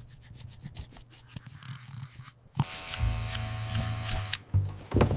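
Hair-cutting scissors snipping in quick repeated cuts. About two and a half seconds in, an electric hair clipper starts buzzing steadily.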